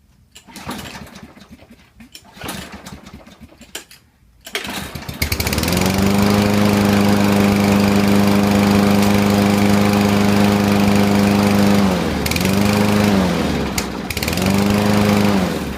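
Small petrol engine of a Husqvarna 6021P walk-behind lawn mower starting about four and a half seconds in, after a few short noises, and running steadily. Its speed sags and recovers twice near the end before it stops. It is running again after its clogged carburetor was cleaned.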